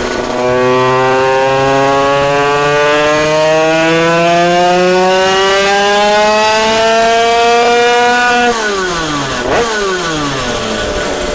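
Tuned two-stroke Derbi Euro 3 moped engine making a full-throttle pull on a roller dyno: its pitch climbs steadily through the rev range for about eight seconds, then the throttle shuts and the revs fall quickly, with one short blip a second later.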